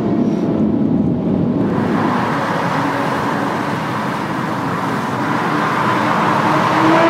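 A sport motorcycle's engine holding a steady, even note for the first second or two; then a steady rushing traffic noise in a road tunnel, out of which a motorcycle's engine note starts to climb in pitch near the end as it accelerates.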